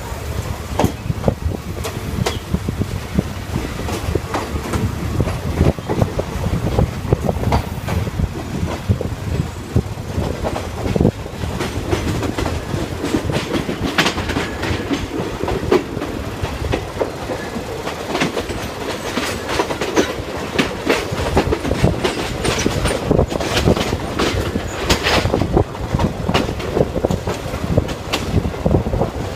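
State Railway of Thailand ordinary passenger train running along the line, heard from a carriage window: a steady rumble with the wheels clattering over rail joints and irregular knocks and rattles from the carriage.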